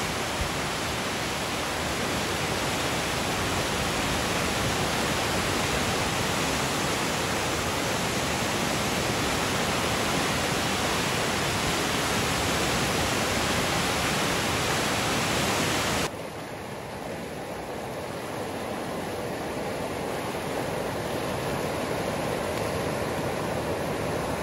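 Flash-flood debris flow of mud, water and burnt logs rushing and churning down a creek channel, a steady loud rushing noise. About two-thirds of the way through it drops suddenly to a lower, duller level, then slowly builds again.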